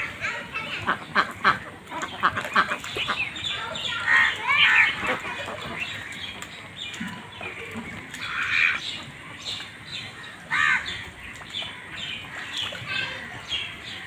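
A flock of domestic ducks quacking: many short calls in quick succession over the first few seconds, then louder, longer calls about four seconds in and again around eight and ten and a half seconds.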